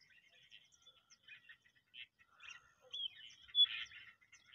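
Birds chirping: a run of many short, high calls, the loudest a little after three and a half seconds in.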